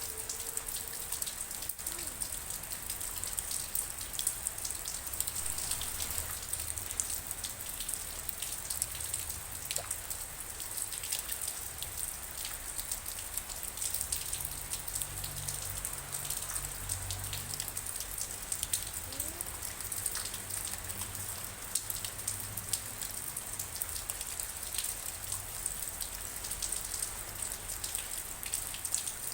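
Steady rainfall, with a dense patter of individual drops ticking over a continuous hiss.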